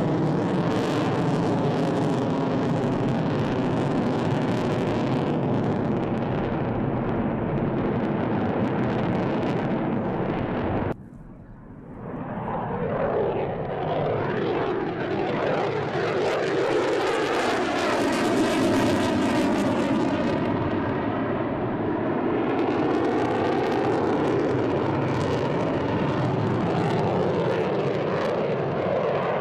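F-22 Raptor's twin jet engines roaring as the fighter flies overhead, the pitch of the roar sweeping as it passes. About eleven seconds in the roar drops away suddenly, then builds back up over a few seconds and stays loud to the end.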